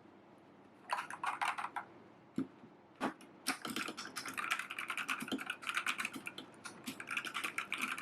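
Typing on an AJAZZ K870T mechanical keyboard fitted with XDA-profile PBT keycaps: a short run of key clicks about a second in, a single click, then fast continuous typing from about three seconds in.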